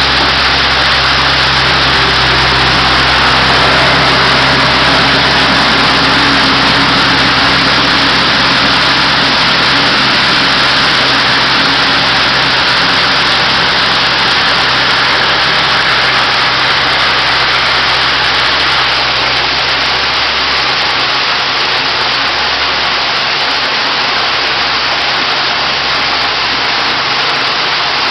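Artificial-rock waterfall pouring into its pool: a loud, steady rush of water with a low rumble underneath that fades about twenty seconds in.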